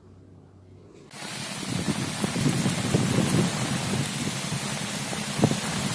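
Heavy cyclone rain pouring down, with wind on the microphone, setting in about a second in and then running as a dense, steady hiss with small crackles.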